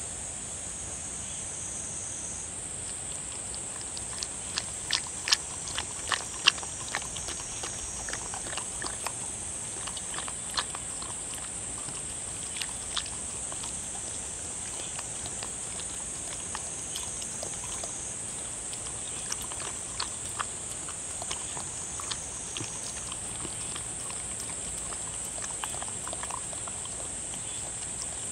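A dog eating wet seaweed soup with beef and dried pollock from a ceramic dish: irregular wet chewing and lapping clicks, thick for several seconds from about four seconds in, then sparser. A steady high hiss runs underneath.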